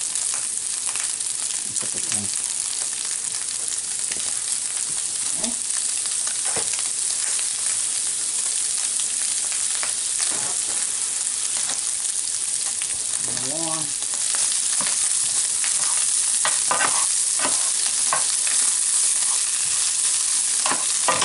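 Ground beef and onions sizzling in butter in a nonstick skillet, with a spoon stirring and scraping now and then. The sizzle gets louder about two-thirds of the way through.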